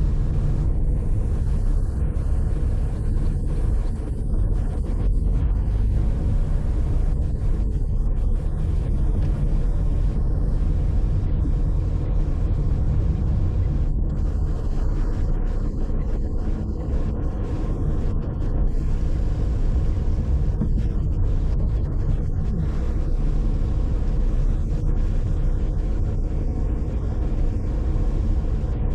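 A car driving along, its engine and road noise making a steady low rumble.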